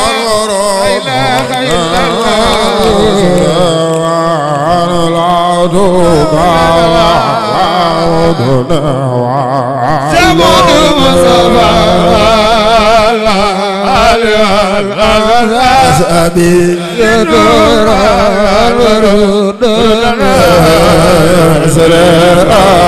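A man chanting a Mouride khassida, an Arabic devotional poem, into a microphone through a loud sound system, his voice held in long melismatic lines with a wavering vibrato.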